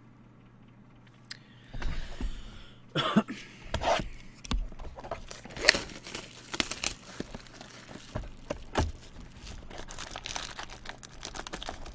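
Foil trading-card wrapper being torn open and crinkled, with cards and packaging handled; irregular crackling and rustling that starts about two seconds in.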